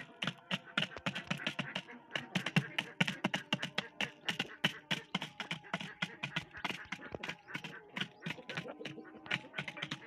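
Aseel chickens pecking grain from a plastic feeder: rapid, irregular beak taps on the plastic, several a second.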